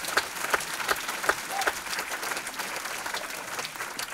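Audience applauding, many hands clapping in a dense, steady patter.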